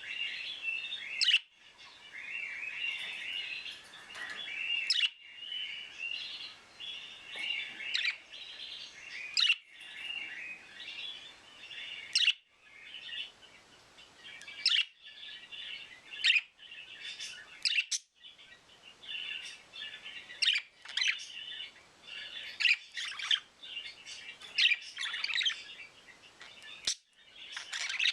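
Pet budgerigars chattering: a continuous warbling babble with sharp, high chirps breaking through every second or two.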